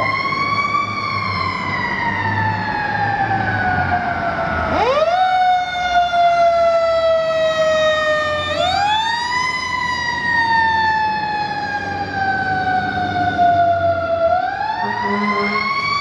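Fire truck siren wailing: the pitch sweeps up quickly, then falls slowly, and climbs again about five, nine and fourteen seconds in. Under it is the low rumble of the ladder truck's engine as it pulls out.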